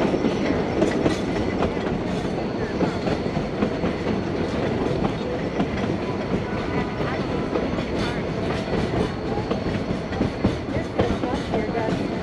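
Railroad passenger cars rolling steadily along the track, the wheels clicking and clacking over the rails beneath a constant rumble.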